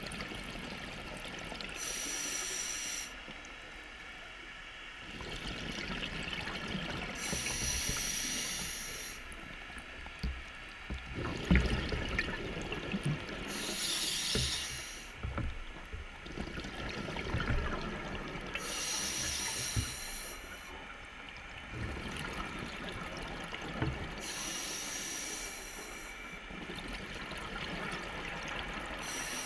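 Scuba diver breathing underwater through a regulator: a rush of exhaled bubbles about every five to six seconds, over a steady faint hum, with a few sharp knocks near the middle.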